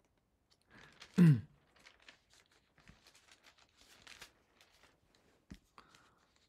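Paper rustling and pages being handled, with scattered soft ticks. About a second in, a short low vocal sound falling in pitch, like a sigh or grunt, is the loudest thing.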